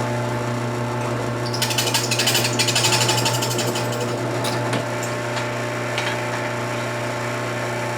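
Drill press bit cutting through clamped G10 handle scales and a steel knife tang, a rapid rattling from about a second and a half in to about three seconds, over a steady low hum, followed by a few light clicks.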